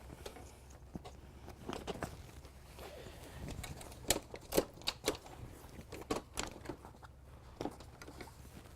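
Irregular clicks and knocks of folding-canoe frame parts being handled and pulled apart during disassembly, busiest around the middle, over a faint steady hum.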